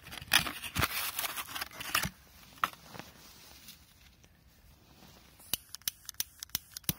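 Packaging, likely a pack of small firecrackers, being torn open and crinkled, with a scratchy tearing noise in the first couple of seconds. A single sharp snap follows, then near the end a quick run of about nine sharp clicks.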